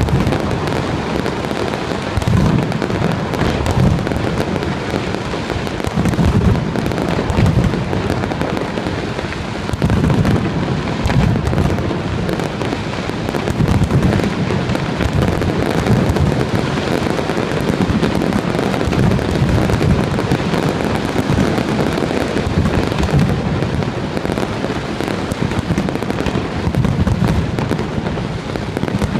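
Aerial fireworks going off in a dense, continuous barrage: overlapping booms and crackling bursts with no pause.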